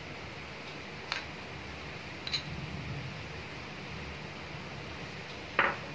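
A few light clicks of a steel spoon against a glass bowl and steel plate as semolina is spooned out, about three in all, the last and loudest near the end, over a faint steady background.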